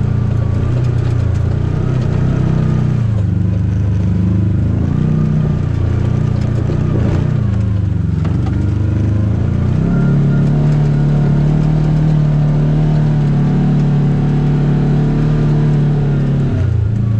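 Side-by-side UTV engine running under way, its note rising and falling with the throttle for about the first ten seconds, then held steady at a higher pitch for several seconds before it drops near the end.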